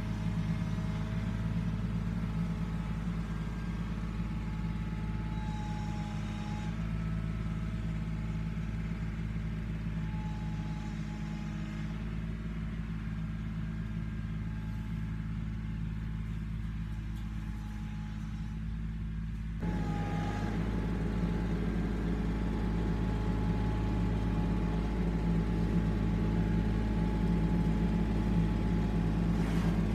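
Compact tractor engine running steadily as the tractor drives away along a dirt track, fading slightly. After a sudden change about twenty seconds in, it is louder again and grows steadily louder as the tractor approaches.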